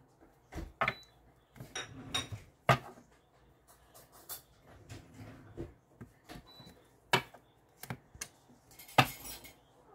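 Cards being dealt and set down on a wooden tabletop: a dozen or so irregular light taps and slaps with quiet gaps between.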